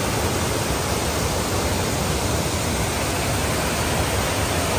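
Waterfall cascading over rock ledges into a rocky stream: a steady rush of falling water, unbroken throughout.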